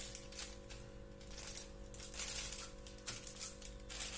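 A plastic sheet crinkles and rustles, with light clicks from a small steel tumbler pressed down on it to flatten a ball of thattai dough into a round. A steady low hum runs underneath.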